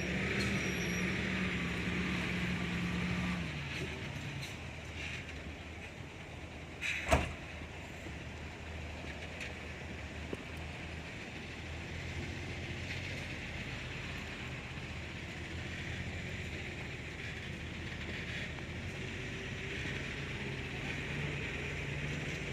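Caterpillar D6G bulldozer's diesel engine running steadily as the machine works, its note dropping a few seconds in. A single sharp knock about seven seconds in.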